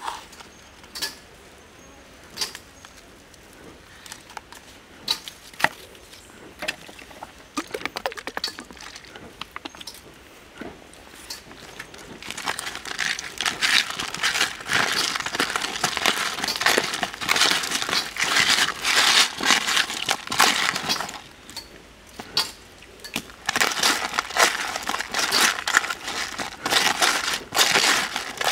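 Hands rubbing skinned water snakes with coarse salt in a woven bamboo basket: a gritty crunching and crackling of salt grains. Only scattered small clicks come first; the rubbing starts about twelve seconds in, stops for a moment near two-thirds of the way, then resumes.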